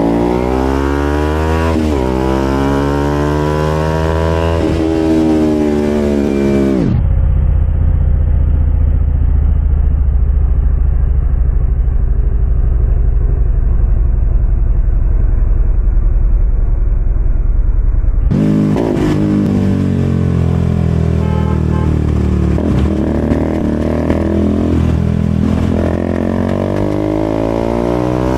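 KTM RC200's single-cylinder engine through an aftermarket SC-Project exhaust, revving up and dropping off over and over as the bike accelerates and shifts through the gears. For about eleven seconds in the middle the sound turns dull and muffled, a steady low drone with no high end. Then the rising and falling engine notes come back.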